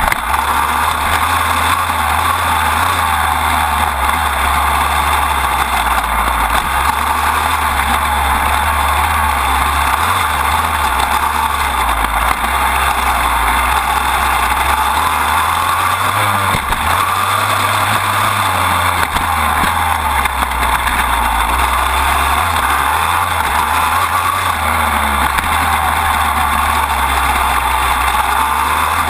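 Dirt bike engine running under way, heard from a camera mounted low on the frame next to the drive chain; the loud sound carries on without a break.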